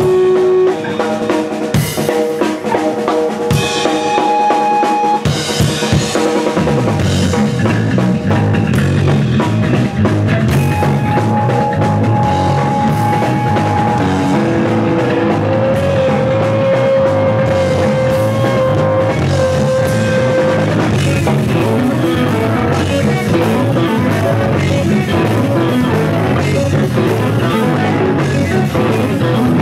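Live rock band playing without vocals: two electric guitars, bass guitar and drum kit. Sparse guitar notes and drum hits open it, the full band comes in about six or seven seconds in, and long held guitar notes ring over a steady drum beat.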